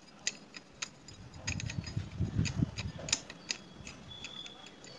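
Hand-threading a nut onto the clutch hub of a Bajaj CT100 engine: a handful of light metallic clicks from the nut and clutch parts, with low rubbing handling noise in the middle.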